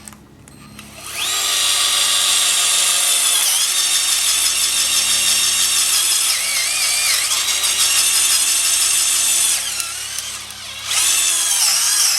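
Cordless screwdriver motor and gearbox whining at high speed while driving self-tapping screws. It runs for about eight seconds, its pitch sagging briefly a few times as the screw bites, eases off, then runs again near the end.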